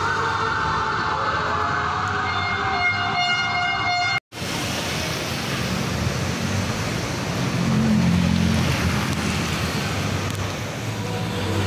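An emergency vehicle's siren wailing over street traffic, cut off abruptly about four seconds in. Then steady city traffic noise with a low engine rumble.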